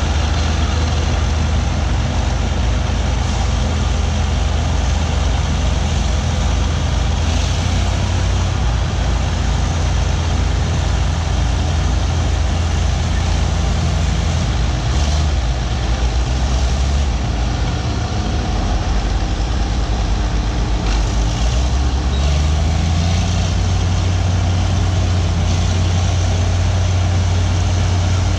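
Diesel engines of two antique crawler bulldozers, a Caterpillar D8 and an Allis-Chalmers HD-16, running under load while pushing dirt. The deep engine note dips and picks up again a couple of times as the load changes.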